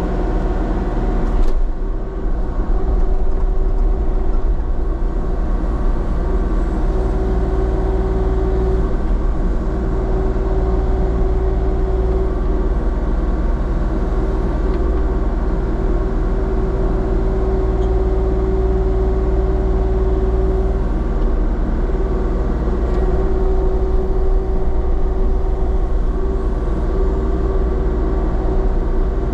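Engine running steadily at constant speed, a low drone with a steady whine above it; a short knock about a second and a half in.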